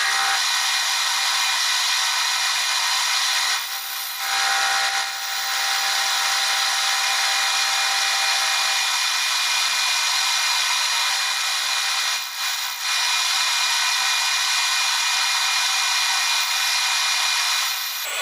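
Metal lathe turning brass stock while a parting blade takes very light cuts: a loud, steady high hiss with faint steady tones. It dips briefly twice, about 4 and 12 seconds in.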